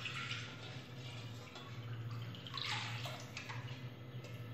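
Milk pouring from a steel pot into a pan, splashing in unevenly in a few gushes.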